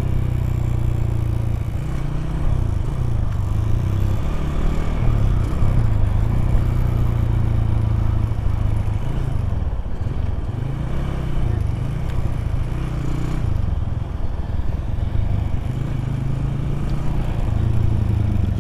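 Motorcycle engine running under way, its note rising and falling with the throttle, with wind rushing over the microphone.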